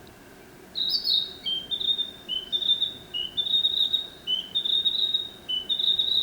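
Narcissus flycatcher singing: a song of clear whistled notes starting about a second in, short lower notes alternating with longer higher ones in repeated pairs.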